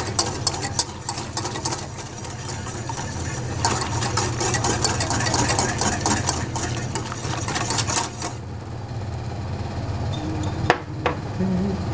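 Wire whisk rapidly scraping and clicking against a stainless steel saucepan as hot chocolate is stirred, stopping about eight seconds in. A couple of light knocks follow near the end as the whisk is set down in a cup, over a steady low hum.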